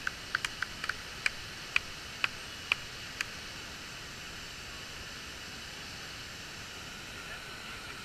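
Steady rush of a wide waterfall pouring over a ledge. A run of about ten short, sharp clicks in the first three seconds, then only the rush.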